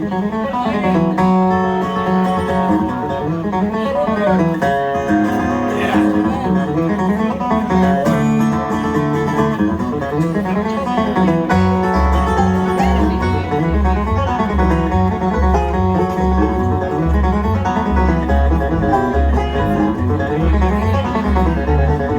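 Live bluegrass band playing an instrumental song intro with picked banjo and acoustic guitar; low bass notes join about halfway through.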